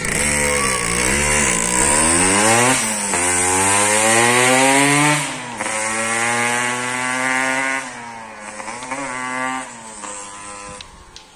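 Motorcycle engine pulling away and accelerating, its note climbing, dropping at a gear change about three seconds in and again about five seconds in, then climbing once more before fading as the bike rides off.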